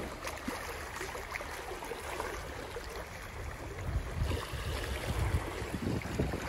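Shallow water lapping over shoreline rocks, with wind gusting on the microphone, strongest about four to five and a half seconds in.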